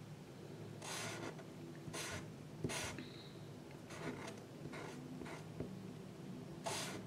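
A drawing tool scratching on paper in about seven separate short, irregular strokes, with one light tap partway through, as clouds and rainbows are drawn.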